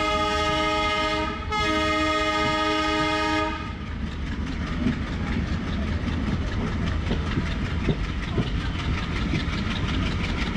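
WAP-7 electric locomotive's horn sounding two blasts, the first ending a little over a second in and the second lasting about two seconds. Then comes the running noise of the moving train, with a fast, regular clatter of wheels on the rails.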